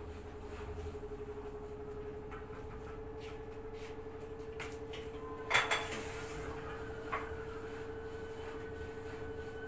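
LG F4R3VYW3WE direct-drive front-loading washing machine running, with a steady hum under scattered light clicks. A sharp clank comes a little past halfway, and a lighter knock follows a moment later.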